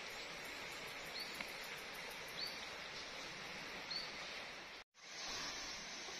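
Forest ambience: a steady high hiss with a bird giving three short chirps, and a brief dropout about five seconds in where the recording cuts.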